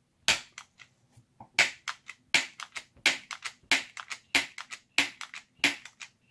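Trigger bar clamp being pumped by hand, its ratchet giving a sharp click at each squeeze, about one and a half a second, with a fainter click after each. The clamp is forcing a tight-fitting polycarbonate tube into a larger one.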